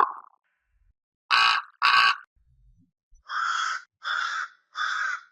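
Crow cawing: two harsh caws, a short pause, then three more caws in a row.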